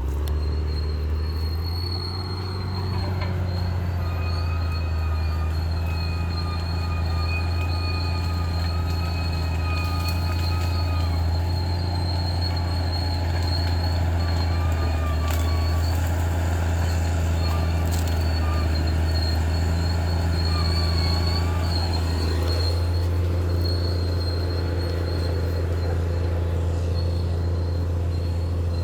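Bulldozer's diesel engine running steadily under load, with high thin squealing tones coming and going over it.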